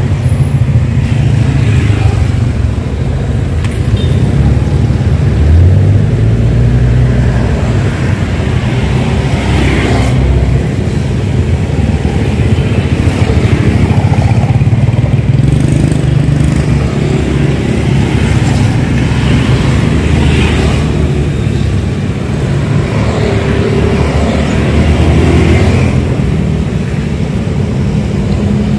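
Steady road traffic: motorcycles and cars running past, a continuous low rumble.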